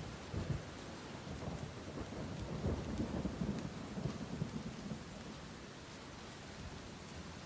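Steady rain falling, with a low rolling rumble of thunder through the first few seconds that eases off after about five seconds.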